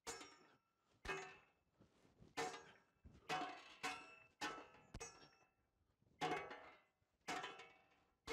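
Sword blade striking a forged steel helmet, a string of about nine blows roughly one a second, each a sharp clang with a short metallic ring.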